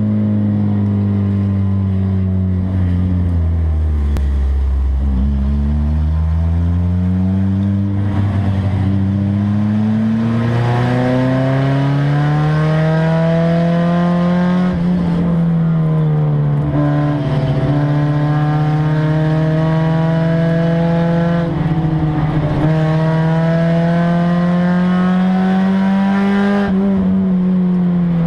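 Enduro race car's engine heard from inside its stripped, caged cabin, running loud under racing load. Its pitch falls for the first few seconds as the car slows, then climbs in long pulls, dropping suddenly a few times along the way.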